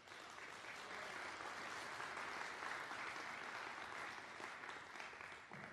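Audience applauding, faint and steady, thinning out near the end.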